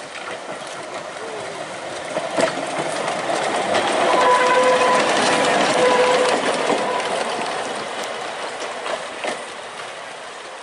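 Narrow-gauge tower wagon rolling past on the rails: steel wheels clicking over the rail joints, growing louder to a peak about halfway through and then fading. A brief high squeal sounds as it passes closest.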